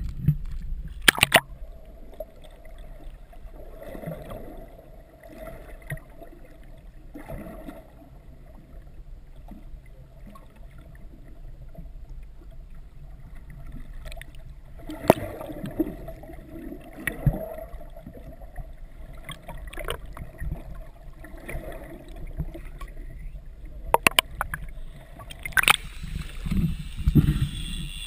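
Water sloshing and gurgling around an action camera dipped below the surface beside a boat's hull, with a steady hum underneath and a few sharp knocks.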